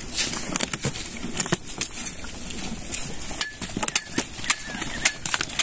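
Many short, irregular, crisp crunches of fleshy cactus pads (palma): a knife slicing pads over the feed trough while cattle chew the cut pieces.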